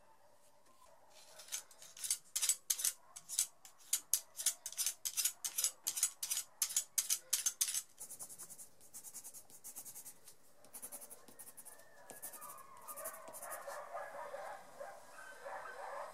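Colored pencil hatching on paper: quick, rhythmic scratching strokes, about three or four a second, loudest in the first half. Softer scratching follows, with a rougher mid-pitched sound joining near the end.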